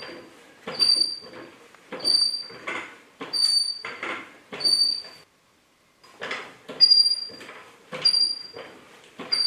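Hydraulic trolley jack being pumped by its long handle, with a squeak on each stroke, about one stroke every second and a bit. The sound cuts out for about a second just after halfway.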